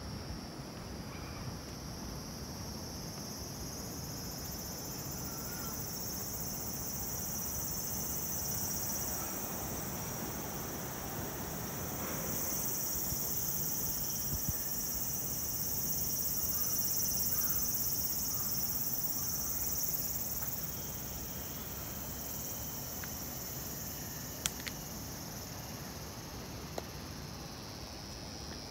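A chorus of cicadas buzzing steadily in two high-pitched bands, swelling louder through the middle and easing off after about twenty seconds, over a low background rumble.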